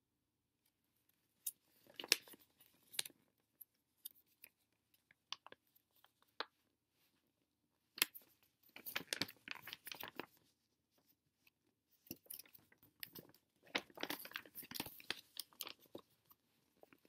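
Glossy paper catalogue being handled and its pages turned: three spells of rustling and crinkling.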